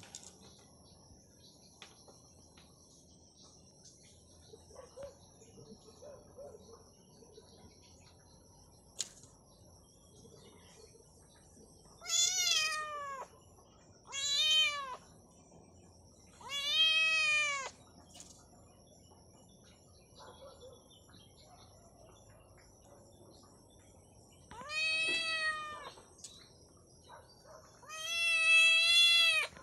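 A kitten meowing five times, each call about a second long and rising then falling in pitch; the last one, near the end, is the longest and loudest.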